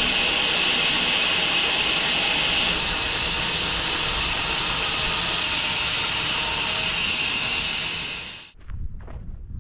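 Home-built 6 ft wide bandsaw sawmill running through a log: a steady, loud hiss-and-whine of the blade in the wood. It cuts off sharply about eight and a half seconds in.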